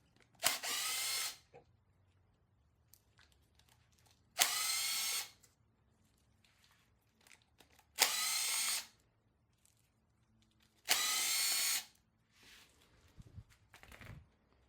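Handheld power tool run in four short bursts, each under a second and starting sharply, about three to four seconds apart. Faint knocks and clatter of parts follow near the end.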